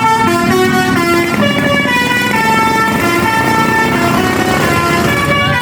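Telolet basuri musical horn playing a tune, its notes stepping up and down every fraction of a second, over a steady low rumble.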